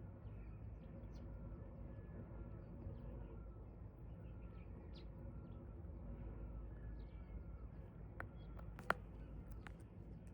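Faint outdoor ambience: small birds chirping over a low rumble. A few sharp cracks stand out, the loudest near the end, from a dog chewing on a stick.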